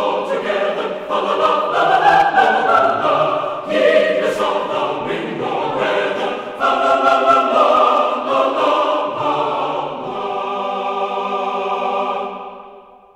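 Choral music: several voices singing held chords, fading out near the end.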